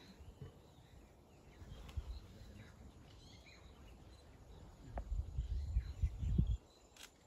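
Outdoor bush ambience: low, uneven rumbling, heaviest from about five to six and a half seconds in, with a sharp click about five seconds in and faint short bird chirps.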